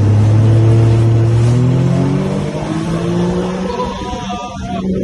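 Sea-Doo GTR 230 jet ski's supercharged Rotax three-cylinder engine running hard, its pitch climbing gently, then easing off and getting quieter near the end.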